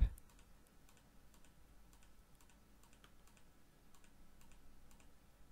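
Faint, irregular clicking of a computer mouse's left button, a dozen or so separate clicks.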